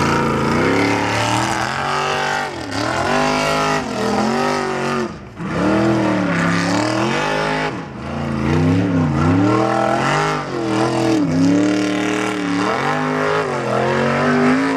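Formula Offroad buggy's engine revving hard under load on a steep dirt hill climb, its pitch swinging up and down over and over, with brief drops in revs about two and a half, five and eight seconds in.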